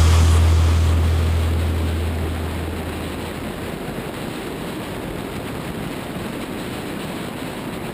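Steady rush of wind and road noise from a car driving at speed, picked up by a camera mounted on the outside of the car. A low hum fades away over the first three seconds.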